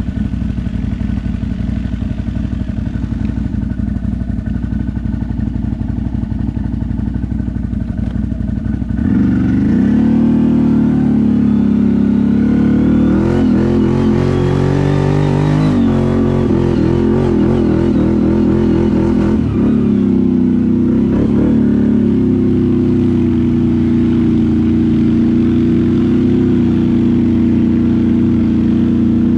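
ATV engine running at a low, steady speed. About nine seconds in it gets louder and revs up and down under throttle, then settles into a steady, higher note for the last third.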